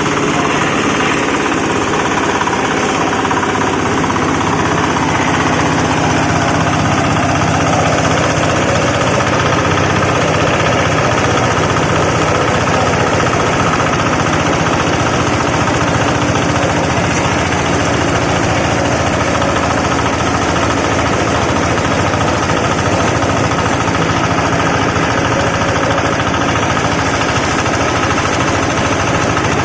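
A wood-shaving machine for chicken bedding running steadily: a loud mechanical drone with a fast, regular pulse.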